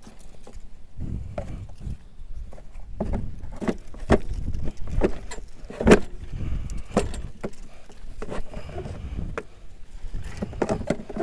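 Irregular knocks, clicks and scraping of a plastic mulching block being worked into the deck of a lawnmower whose engine is off. The sharpest knock comes about six seconds in.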